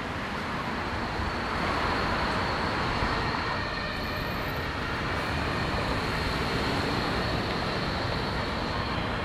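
Road traffic ambience: a steady rush of passing vehicles' tyres and engines, swelling slightly about two seconds in as a vehicle goes by.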